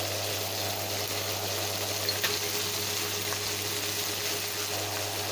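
Green beans, carrots and onion sizzling in a frying pan as they sauté: a steady, even hiss with a low hum under it, and a faint click about two seconds in.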